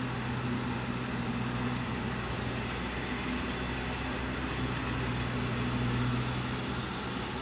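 Steady low engine drone with a rushing hiss, swelling slightly twice.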